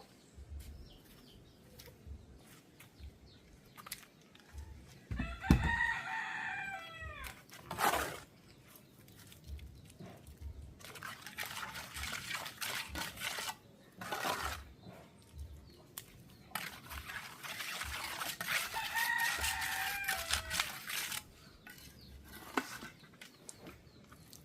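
A rooster crowing twice, once about six seconds in and again about nineteen seconds in, each call falling in pitch at the end. Stretches of rushing noise come between and around the second crow.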